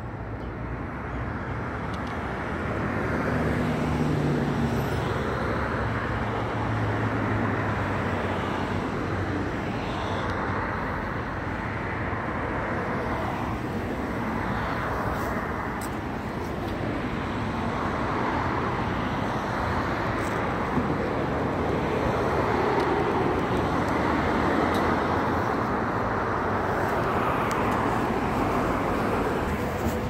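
Steady road traffic noise, swelling and fading slowly as vehicles pass.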